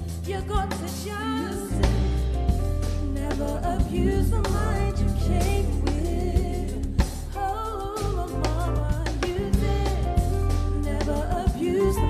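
A live band plays with a singer's voice over keyboard, drum kit and a deep bass. The bass drops out briefly at the start and comes back in about two seconds in.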